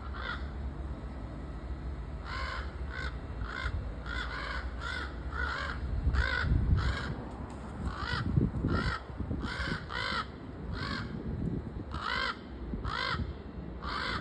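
Crows cawing over and over, short harsh caws in quick runs. A low rumble rises under them for a few seconds in the middle.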